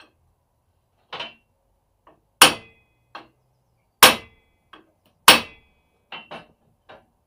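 Hammer striking a socket held on the engine's flywheel, knocking the flywheel down to seat it on the shaft: three hard blows, each with a short metallic ring, with lighter taps between them.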